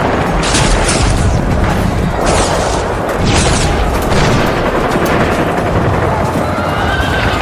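Dubbed-in sound effects: a low booming rumble with three short hissing whooshes in the first four seconds, over music.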